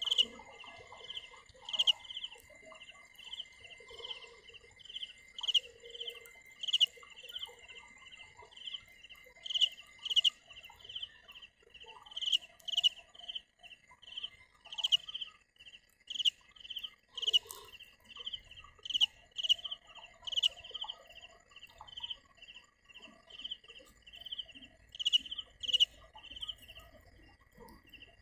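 Cricket calling: short, high chirps repeated rapidly, about two a second, over a steady, continuous high tone.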